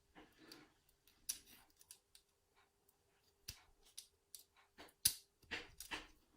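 Irregular sharp metallic clicks and short scrapes as pliers work circlips onto a Yale euro cylinder lock. The loudest snap comes about five seconds in.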